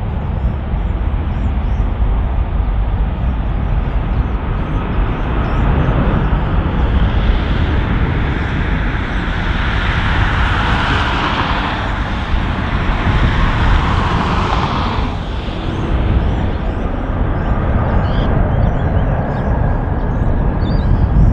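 Four Rolls-Royce RB211 turbofans of a Boeing 747-400 running at takeoff thrust as the jet rolls down the runway: loud, steady jet noise with a deep rumble, its higher hiss swelling in the middle and easing off about fifteen seconds in.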